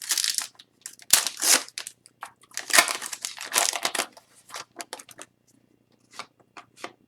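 Wrapper of an Upper Deck hockey card pack crinkling and tearing as it is opened, with the cards handled: irregular rustling bursts, then a few short light clicks.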